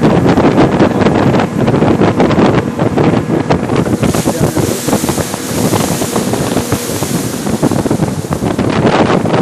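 Wind buffeting the microphone on a moving boat, over a steady rush of boat and water noise, with a brighter hiss joining in for a few seconds in the middle.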